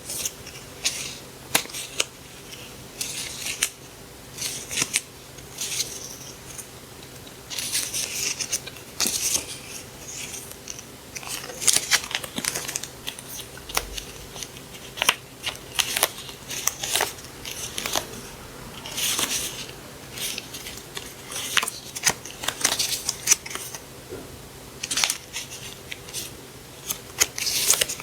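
Scissors cutting paper: repeated crisp snips and blade clicks with paper rustling, coming in irregular bursts.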